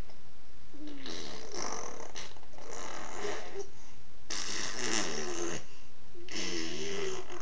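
Baby blowing raspberries: about four long, buzzy lip-trills in a row, each a second or more, with the baby's voice wavering in pitch through them.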